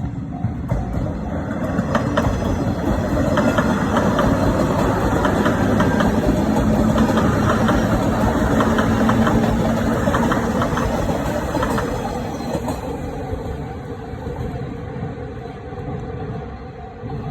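103 series electric train passing slowly over a level crossing: wheels clacking over the rail joints, with a steady hum in the middle, building to its loudest halfway through and then fading away. The crossing's warning bell is heard ringing again, repeating evenly, near the end.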